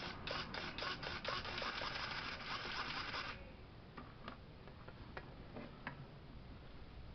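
Traxxas Summit RC truck's electric drivetrain running under radio throttle, a rattling whir of gears with quick clicks, which cuts off suddenly about three seconds in. A few light scattered clicks follow.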